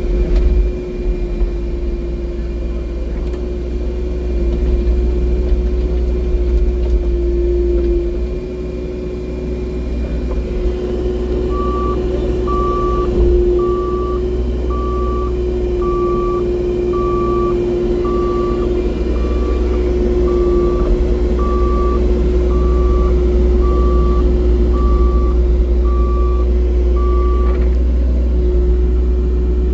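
Excavator's diesel engine running steadily with a heavy low rumble. About twelve seconds in, a reversing alarm starts beeping about once a second and stops a couple of seconds before the end.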